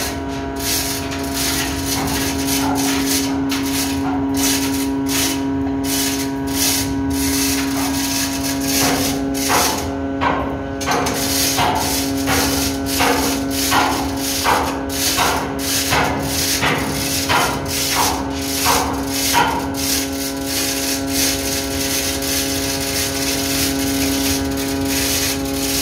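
A steady machinery hum drones in the anchor chain locker, under a regular knocking and scraping of about two strokes a second as the chain is hauled by hand. Through the middle stretch come repeated short sounds that swoop up and down.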